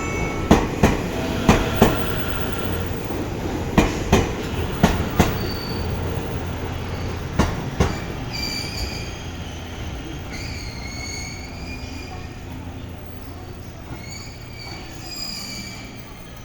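JR East E257-series electric train pulling slowly into the platform, its wheels clacking over rail joints. The clacks space out and stop after about eight seconds as it slows, then high wavering squeals as it comes to a stop.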